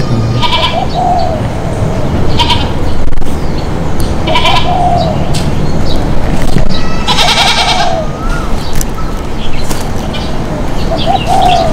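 Goats, adults and young kids, bleating. There are about five short, high calls a couple of seconds apart over a steady background hiss.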